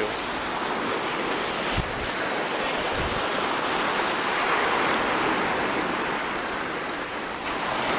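Small sea waves breaking and washing up a sandy beach, a steady hiss of surf.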